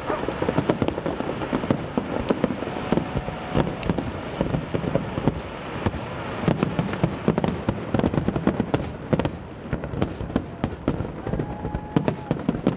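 Fireworks display: a dense, continuous barrage of bangs and crackling, many sharp reports a second.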